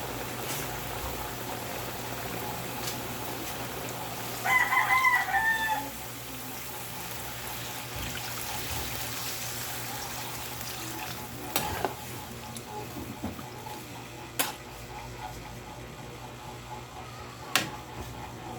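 A rooster crows once, about four seconds in, over a steady background hiss. Three sharp knocks come later.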